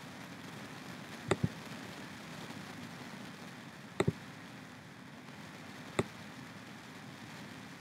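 Computer mouse clicking: a quick double click about a second in, another about four seconds in, and a single click about six seconds in, over a steady faint hiss.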